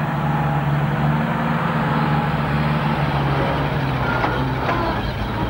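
Vintage Austin fire engine's engine running at low revs as the truck drives slowly past, a steady low drone that fades after about three and a half seconds.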